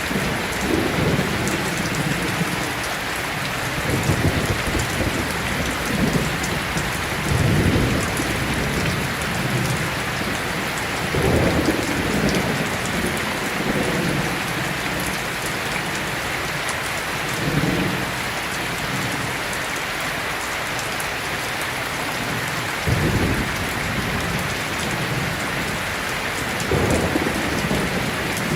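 Steady, heavy rain hissing. Short low rumbles of thunder rise out of it every few seconds.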